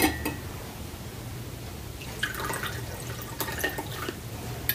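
A drink poured from a metal cocktail shaker into a martini glass: liquid trickling and splashing in, with a sharp clink at the start and a few light clinks toward the end.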